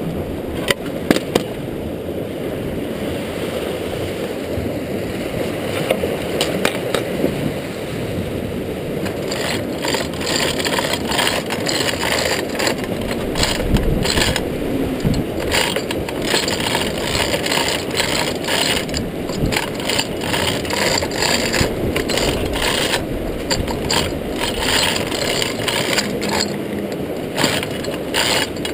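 Hand-chain hoist (chain block) being worked by pulling its hand chain: a few clicks at first, then continuous rapid ratcheting clicks and chain rattle from about ten seconds in, over a steady low rushing noise.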